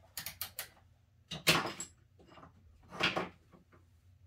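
Handling noise while a multimeter is set up for a resistance check: a quick run of four small clicks, then two louder scuffing knocks about a second and a half apart.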